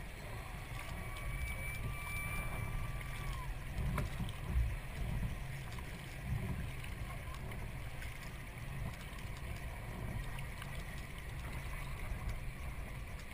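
Kayak paddle blades dipping and splashing, with water lapping at the hull, over a steady low rumble.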